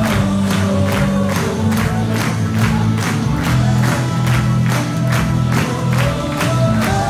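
Upbeat music with a quick, steady beat over a bass line, with crowd noise beneath it.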